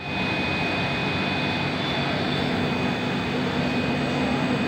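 Machinery of a garden PVC pipe production line running steadily: an even whirring din with a steady high whine over it.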